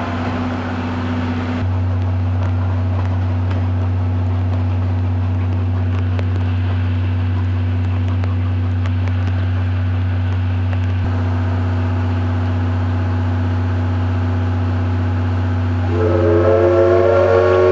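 A steady low hum, then about 16 seconds in a loud, long steam whistle from the C11 207 steam locomotive. The whistle is the signal for the train's departure.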